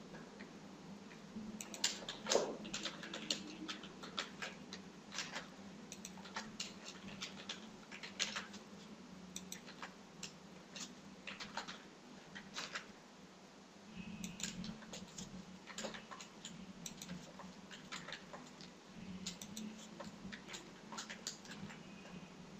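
Faint, irregular clicking of a computer keyboard and mouse, a few clicks at a time with short pauses, over a faint steady hum.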